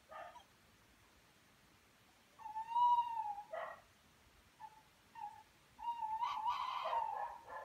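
Animal calls: a long pitched note with a slight rise and fall, a few short notes, then a longer wavering call mixed with harsher sounds.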